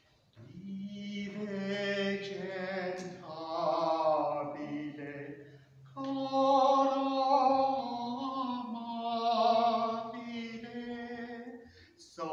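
A man singing solo and unaccompanied, holding long sustained notes in two phrases with a brief breath between them about halfway through.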